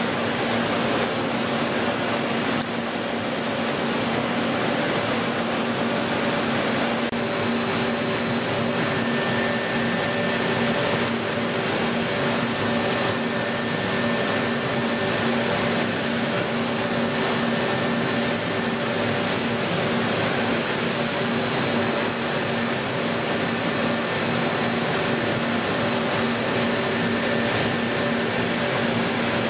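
DMG Mori Seiki mill-turn machining center running a turning cut on a spinning metal part: a steady, even mechanical hiss with several low steady hums, and faint high tones that join about seven to nine seconds in.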